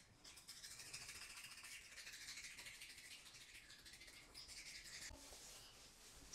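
Faint scrubbing of a small toothbrush's bristles on a baby's teeth, a soft scratchy hiss that fades out about five seconds in.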